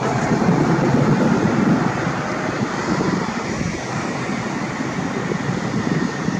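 A steady low rumble of vehicle noise, with no distinct knocks, tones or rhythm.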